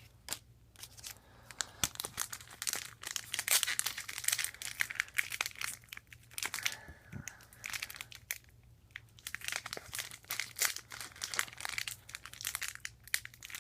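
Wrapper of a pack of 2014 Rookies and Stars football cards being crinkled and torn open by hand: a continuous run of irregular crackles. The pack is hard to get open.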